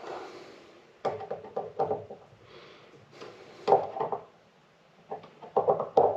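Clicks and light knocks of small parts and hand tools being handled on a workbench, coming in three short clusters.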